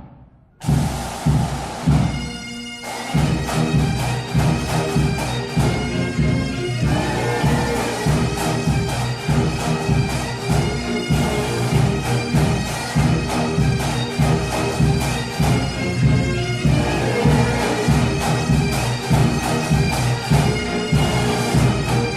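Bagpipes playing a march tune over their steady drone, with a regular beat underneath. The music starts about half a second in, after a brief silence.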